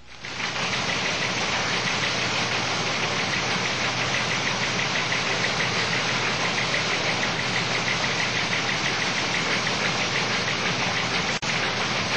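Loud, steady, rapid mechanical clatter of a news-wire teletype sound effect, starting suddenly and cutting out for a moment near the end.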